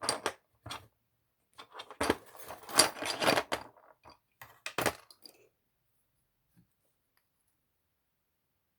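Small metal lock followers clinking and rattling as they are rummaged through: a run of sharp clicks that stops about five seconds in.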